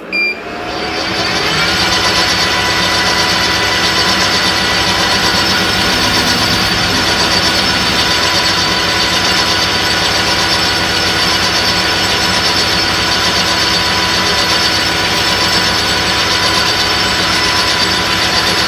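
Metal lathe switched on and running steadily, spinning an end mill in its chuck to mill a slot in a brass bar on a milling attachment: a loud, steady whine of motor and gears that winds up in the first second.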